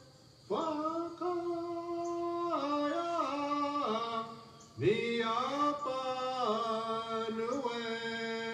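Flute music: a slow melody of long held notes that move up and down in steps. It begins about half a second in, pauses briefly, and near the five-second mark a new phrase opens with an upward slide.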